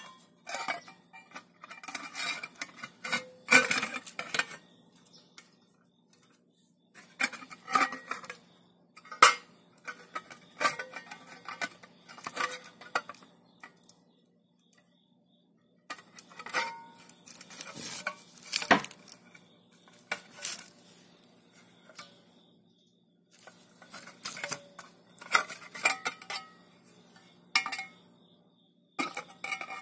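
Sheet-metal computer power supply case being handled and closed up: irregular clinks and clatters of metal on metal, in bursts with short pauses.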